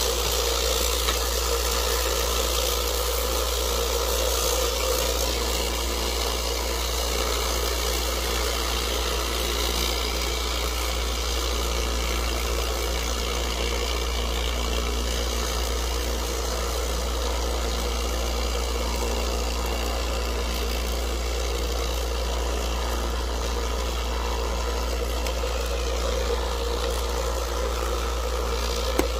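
Lot-O vibratory rock tumbler running with a steady low hum and vibration. Its barrel of agates is working in 500-grit aluminum oxide.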